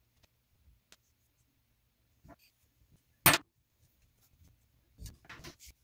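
Hand tools working a metal RC suspension link held in pliers, with a hex driver on its screw: a few faint ticks, one sharp click a little over three seconds in, and a short cluster of handling noises near the end.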